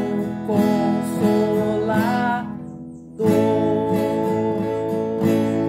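Acoustic guitar strummed in a steady rhythm pattern through a chord change. The strumming drops away about two and a half seconds in, then a chord is struck and left to ring, with a couple of light strokes near the end.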